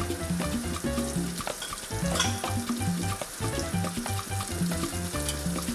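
Onions and garlic sizzling as they fry in melted pork lard in a pot, under background music with a stepping bass line.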